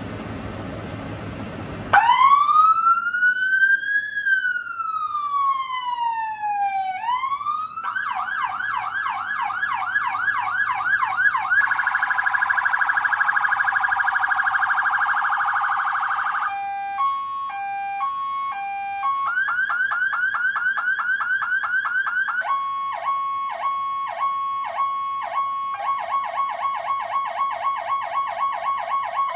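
Fire engine siren driven by a PSS Szczęśniak PS 200 electronic modulator, stepping through its tones. It starts about two seconds in with a slow wail that rises and falls, then changes to a fast yelp, a very rapid warble, a two-tone alternation between two pitches, the yelp again, and finally fast pulsing tones. The truck's engine is running underneath before the siren starts.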